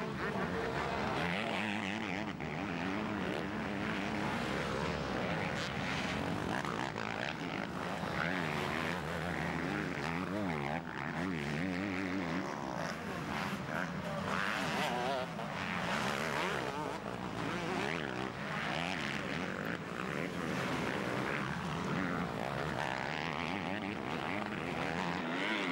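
Motocross bike engines revving hard, their pitch rising and falling again and again as the throttle is opened and shut over the jumps and climbs.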